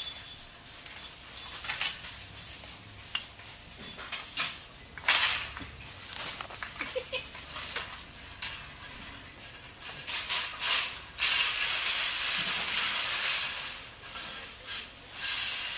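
Clatter and clinking of a wire shopping cart and goods being handled on store shelves, in scattered sharp rattles, with a stretch of loud rustling hiss about two-thirds of the way through.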